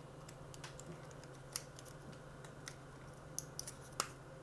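Faint, scattered small clicks from handling a Canon EOS M10 camera as an SD card is pushed into its card slot, with the sharpest click about four seconds in.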